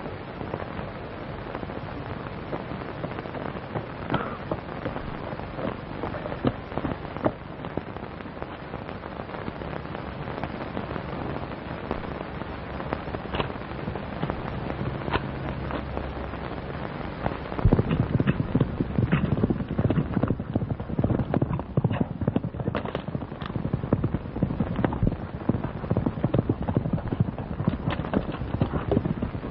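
Hiss and crackle of an early sound-film soundtrack. About eighteen seconds in, the hoofbeats of a galloping horse come in and the sound gets louder.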